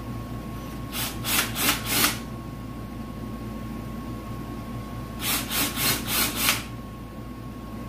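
Cordless drill spinning an oversized drill bit in a screw hole in a wooden board, countersinking it. It cuts in two runs of short pulses, about three a second: four about a second in and five more near the end.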